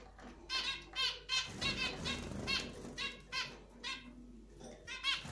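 Young zebra finches giving short repeated calls, a dozen or so in quick clusters with a lull near the end, and a brief flutter of wings about one and a half seconds in.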